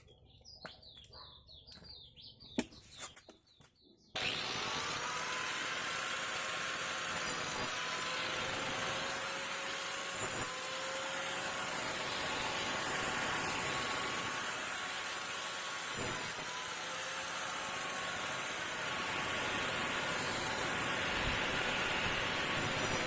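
A few bird chirps, then an angle grinder with a wood saw blade starts suddenly about four seconds in and runs steadily, cutting branches.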